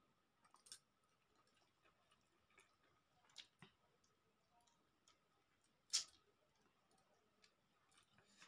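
Faint, scattered sounds of a person eating rice and curry by hand from a steel plate: a few small clicks, with a sharper click about six seconds in.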